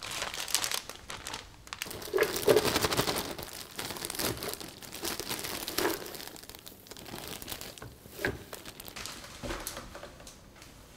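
Plastic bag crinkling as a bag of leafy greens and vegetables is emptied into a blender jar, with the leaves rustling as they are pushed down inside. The crackling is irregular and loudest in the first few seconds.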